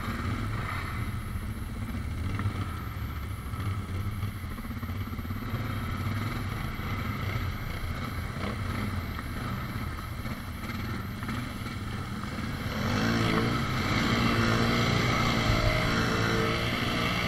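ATV engine running at low trail speed on a rough, muddy track. About two-thirds of the way through it gets louder, with the pitch rising and falling as the rider works the throttle over rocky ground.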